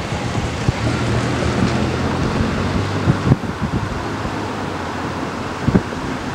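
Diesel locomotive approaching at the head of a passenger train, its engine running with a steady low drone, mixed with wind buffeting the microphone.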